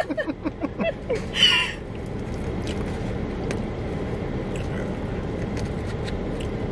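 Steady low hum and rush of a running car heard inside its cabin, with a few faint clicks of plastic forks against a takeout container. A short laugh and breath in the first second or so.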